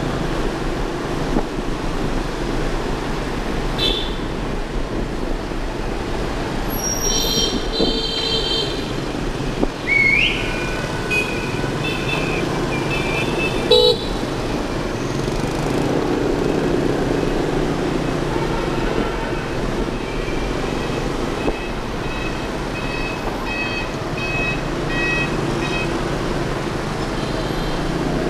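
Street traffic heard from the back of a moving motorbike: a steady rumble of engines and road noise, with horns from passing motorbikes and cars tooting again and again, a cluster of short beeps near the end.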